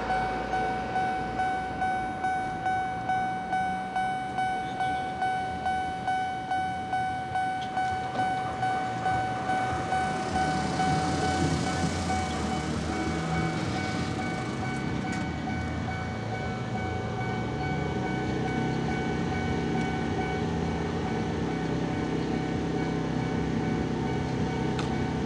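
Japanese level-crossing warning bell ringing its repeated "kan kan", about one and a half strokes a second, then a train passing over the crossing. From about ten seconds in, the train's running rumble swamps the bell.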